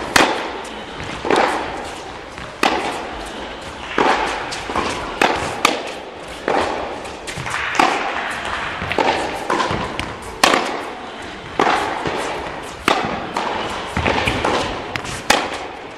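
Tennis ball struck by rackets and bouncing on an indoor hard court during a rally: sharp pops about every second and a quarter, each echoing in the large hall.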